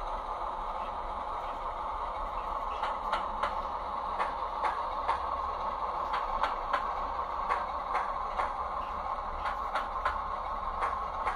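H0-scale model of a Romanian 060-DA diesel locomotive running slowly with a steady diesel-style drone. From about three seconds in, irregular clicks of its wheels crossing rail joints and points come over it.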